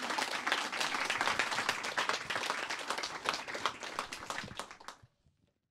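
Audience applauding, many hands clapping densely, fading away and stopping about five seconds in.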